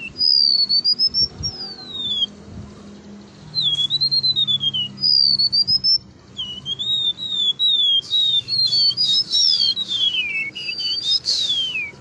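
Golden-bellied gerygone singing: clear whistled notes that slide up and down, in phrases of one to two seconds with short pauses between them. Near the end the notes quicken into a rapid run of falling whistles.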